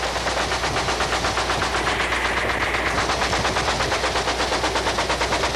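Helicopter gunship in flight, heard from aboard: a steady, rapid rhythmic chop of roughly ten beats a second over a constant low engine hum.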